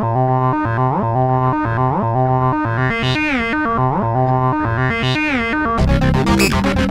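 Electronic background music: synthesizer chords repeating in a steady rhythm with sweeping pitch glides, the arrangement growing fuller near the end.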